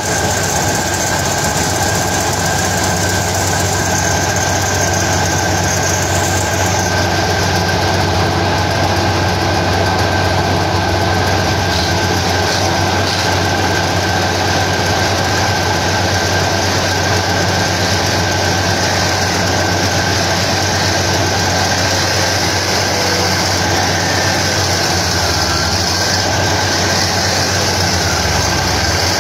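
Tractor engine running steadily under load while the tractor is bogged down in deep paddy-field mud.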